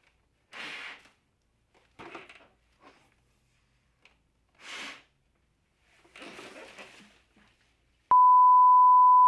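Four short, noisy breaths into a plastic bag pulled over the head, the bag rustling with each. About eight seconds in, a loud, steady, pure beep starts and holds, a heart-monitor flatline tone.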